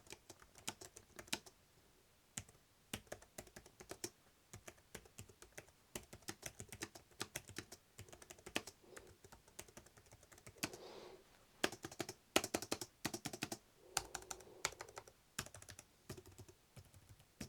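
Typing on the Cherry KW 7100 Mini BT slim Bluetooth keyboard, its low-profile scissor-switch keys making quiet, irregular clicks, with a short pause about two seconds in and a faster run of keystrokes around twelve seconds in.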